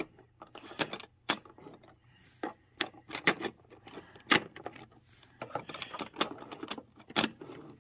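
Irregular small clicks and taps from an O-scale model passenger coach being handled by hand on the track, several a second, the sharpest a few seconds in.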